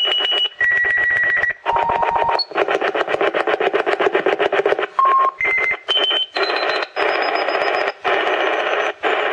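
Shortwave radio signal heard through a home-built crystal radio set: a harsh, rapid buzzing in short bursts with brief gaps, most bursts carrying a steady whistle tone. The tone steps down in pitch over the first two seconds, and after a longer burst it steps back up through several higher pitches. The uploader takes these signals for HAARP transmissions.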